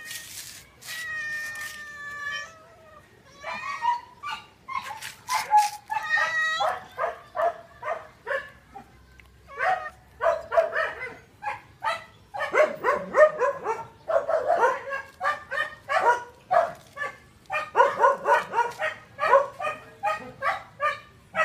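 Cats meowing: one long, level meow near the start, then a run of many short, quick mews, several a second.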